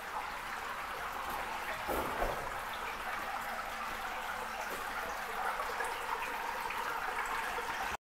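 Water trickling and splashing through a limestone cave passage, a steady watery hiss: rainwater seeping in through cracks in the limestone. A brief thump about two seconds in.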